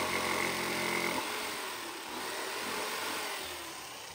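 Corded jigsaw cutting through a wooden board. Its steady motor sound changes about a second in, with a wavering pitch that falls, and fades toward the end as the cut finishes and the saw is lowered.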